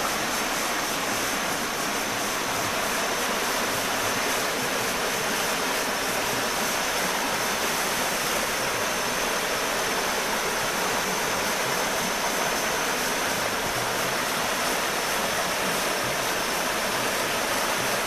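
Rushing water of river rapids, a steady even noise that does not change, with a thin steady high tone above it.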